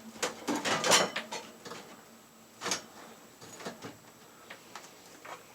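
Handling noise from a KVM switch and its cables being pulled free: a burst of clicks and rattles in the first second, one sharper click near the middle, then scattered faint ticks.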